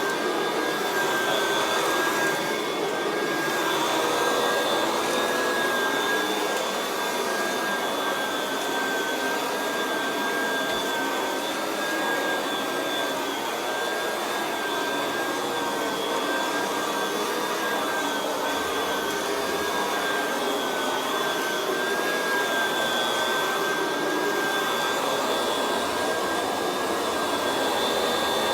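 Kirby Classic 3 upright vacuum running steadily with a carpet-fluffer brush roll fitted, being pushed over carpet. A steady rush of air carries a high motor whine that wavers slightly in pitch.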